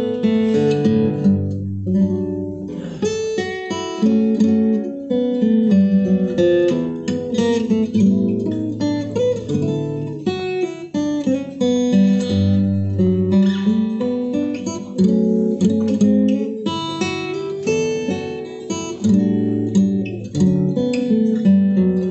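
Solo acoustic guitar playing an instrumental piece, picked melody notes ringing over bass notes.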